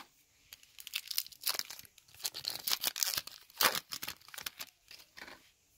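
A 2018 Topps Gallery baseball card pack wrapper torn open and crinkled by hand: an irregular run of crackling tears and rustles.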